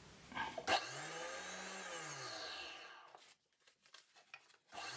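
Small benchtop drill press motor running, its pitch dipping and climbing back again and again, with a few sharp scrapes and clicks about half a second in. It dies away about three seconds in and starts up again just before the end.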